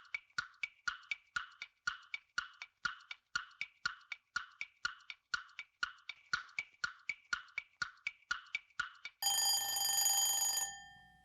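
Quiz countdown timer ticking about three times a second, then a ringing alarm tone about nine seconds in that sounds for about a second and a half and fades out, marking that the answer time is up.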